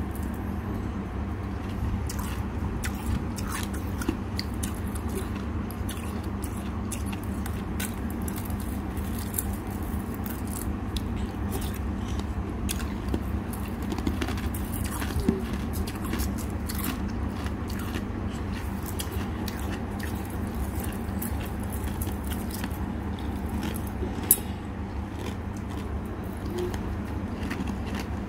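Defrosted freezer frost being bitten and chewed: a continuous run of small crisp crunches with a couple of sharper cracks, over a steady low hum.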